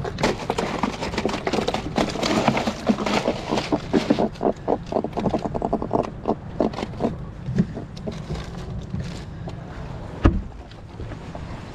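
A freshly caught lookdown flopping and knocking inside a cooler: a rapid run of knocks and rattles for about seven seconds that thins out, then one sharp knock about ten seconds in.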